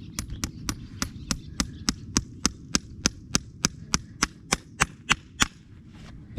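Farrier's hammer striking metal in a steady rhythm, about three to four sharp blows a second, stopping about five and a half seconds in, over a low steady rumble.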